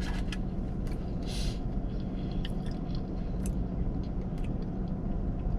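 Close-up eating sounds: scattered small clicks and crunches of chewing and spoon or cup handling, over a steady low hum.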